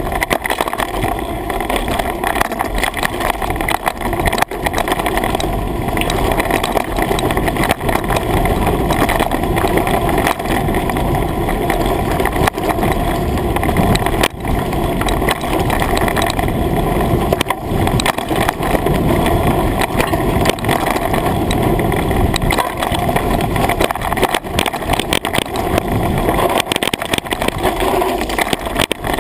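A mountain bike ridden fast down a rough dirt woodland trail: a steady rush of wind on the microphone with constant rattles and knocks from the bike jolting over the ground.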